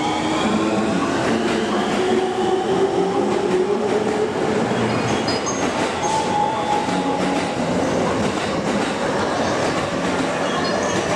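JR East E231 series 900-number prototype commuter train pulling away: its Hitachi IGBT-VVVF inverter and traction motors whine in several rising tones over the first few seconds as it accelerates, then settle into steadier tones. Underneath is the rumble of the wheels on the rails.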